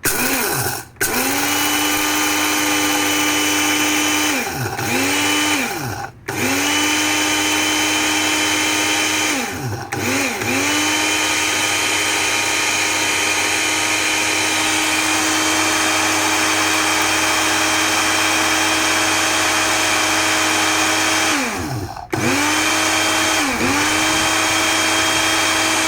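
Hyundai HABT-9430 electric coffee grinder running on a load of coffee beans, its motor whining steadily. It is cut off and restarted several times, the pitch dropping and climbing back at each restart.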